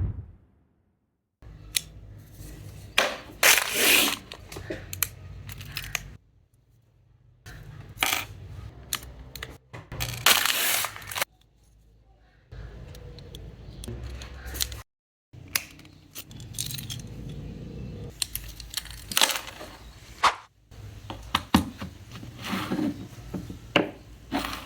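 A 3D-printed phone-stand keyring being handled in several short takes: sharp plastic clicks and snaps, brief scraping, and light metallic clinks and jangles.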